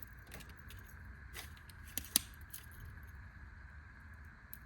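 Light metallic clicks and clinks as a Hillman 7-in-1 mini keychain multi-tool is handled and its Phillips screwdriver is put to use, with one sharper click about two seconds in.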